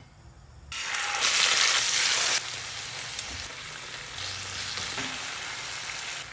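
Chicken sizzling in hot oil on a tawa griddle. The sizzle starts loud about a second in, then settles to a quieter steady sizzle after a couple of seconds.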